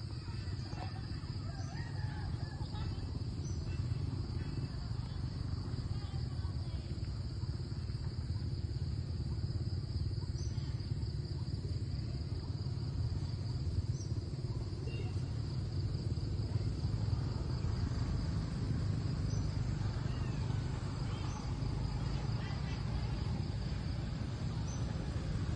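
A steady, high-pitched insect chorus over a low rumble, with faint voices in the distance.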